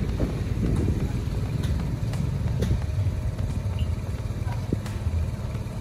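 Diesel engine of a Mitsubishi Fuso truck idling with a steady low rumble. Sharp knocks come every second or so as sugarcane stalks are handled on the truck bed.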